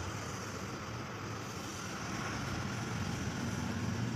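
Steady low mechanical droning hum with an even hiss above it.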